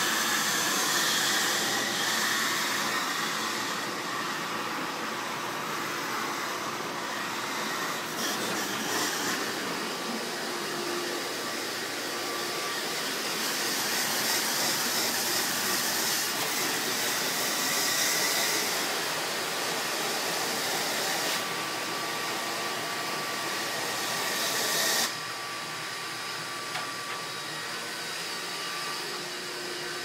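Pressure washer spray hitting air-conditioning condenser coil fins: a steady hiss of water spray that swells and eases as the wand moves. About five seconds before the end the hiss drops off sharply, leaving a quieter steady noise.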